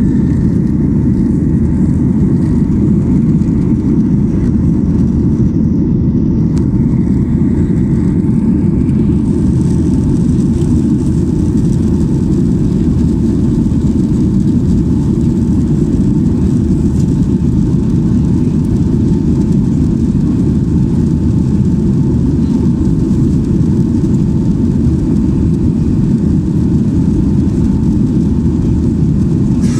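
Boeing 737-800's CFM56-7B jet engines and rushing air heard inside the passenger cabin as a steady, loud low roar with a faint steady tone above it. A little more hiss joins in about nine seconds in.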